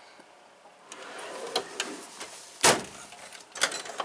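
Metal toolbox drawer sliding on its runners, with a few light clicks and one loud clunk about two and a half seconds in as a drawer is shut or the next one pulled open.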